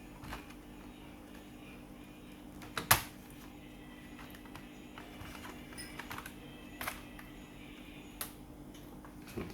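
Hard plastic clicks and snaps of an HP G42 laptop's case being pried open, with one loud snap about three seconds in and several lighter clicks after it.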